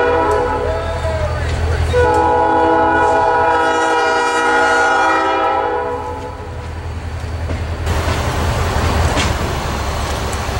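Diesel locomotive air horn blowing: a short blast, then a long held blast that stops about six seconds in, over a steady low rumble.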